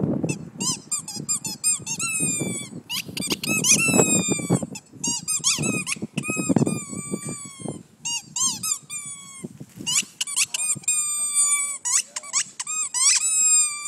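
A rubber squeaky toy ball chewed by a Shiba Inu, squeaking over and over in quick clusters. Many of the squeaks fall slightly in pitch, with a few stretches of low rough noise beneath them.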